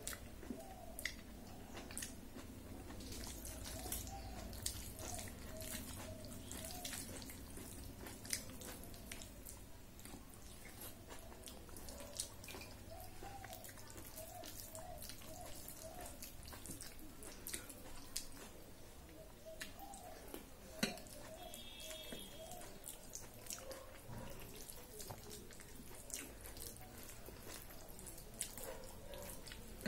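Close-miked wet eating sounds: chewing, lip smacks and mouth clicks as khichdi is eaten by hand, with soft squishing of rice mixed by fingers on a steel plate.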